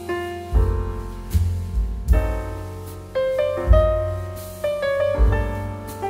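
Background music: a piano playing notes that ring and fade, with a deep bass note struck every second or so.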